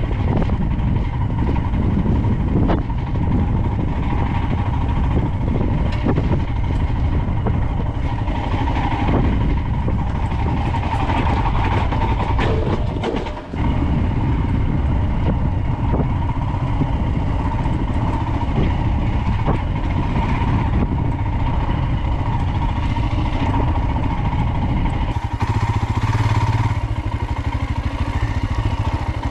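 Royal Enfield Himalayan single-cylinder motorcycle engine running while riding, mixed with heavy wind rush on a helmet-mounted microphone. The level dips briefly about halfway through, and near the end the low engine note comes forward.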